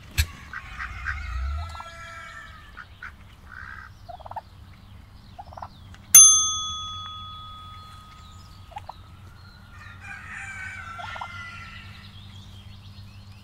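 Hens clucking in the first couple of seconds and again near the end. About six seconds in, a single bright bell ding rings out and fades over a second or so.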